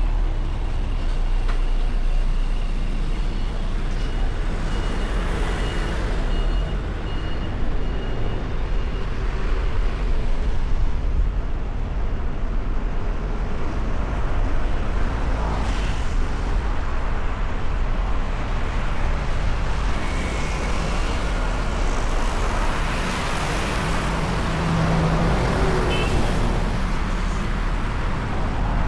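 City street traffic: a steady low rumble of engines and tyres, swelling several times as vehicles pass close by.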